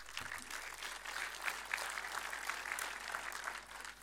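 Audience applauding, thinning out near the end.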